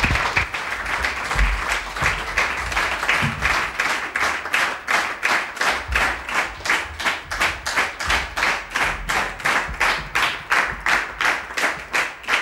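Audience applause greeting a performer's entrance. The scattered clapping settles a few seconds in into steady clapping in unison, about three to four claps a second.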